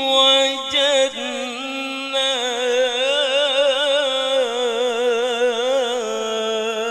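A male Qur'an reciter chanting verses (tilawah) into a microphone: one voice holding long melismatic phrases, the pitch wavering through ornamented turns, with a brief break about a second in.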